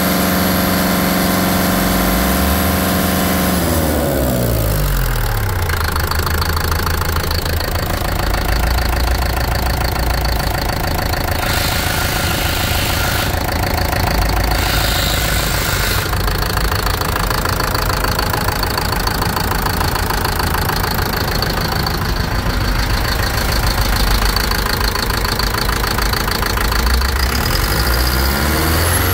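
2004 Mercedes MBE 904 4.3-litre four-cylinder diesel engine running. Its speed falls to a steady idle about four seconds in, then rises again just before the end.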